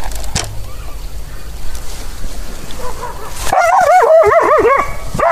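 An animal calling: a fast run of short, high calls, each rising and falling in pitch, starting about three and a half seconds in, after a couple of knocks near the start.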